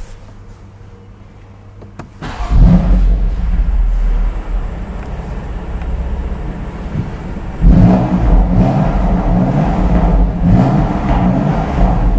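BMW M2 Competition's twin-turbo straight-six starting up about two seconds in with a loud start-up flare, then settling to idle. From about eight seconds in it is revved in repeated blips.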